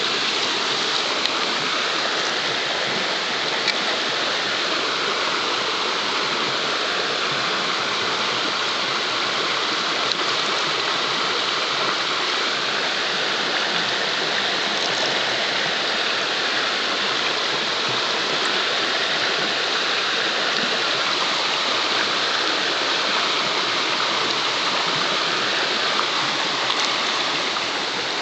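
Steady rush of a shallow rocky stream, water running and splashing over stones, even and unbroken.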